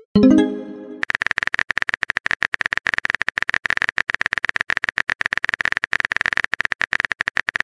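Texting-app sound effects: a short pitched pop as a message bubble appears, then a rapid, even run of keyboard-typing clicks as the next message is typed.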